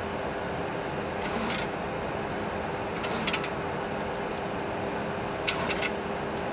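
Steady cockpit noise of a Boeing 737 Classic full flight simulator on approach: an even rushing hum with a steady low tone, broken by a few sharp clicks about a second in, about three seconds in, and a quick cluster at five and a half seconds.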